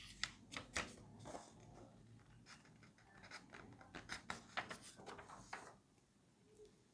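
A sheet of paper on a clipboard being lifted and turned over: a run of crisp paper crackles and rustles that stops a little before the end.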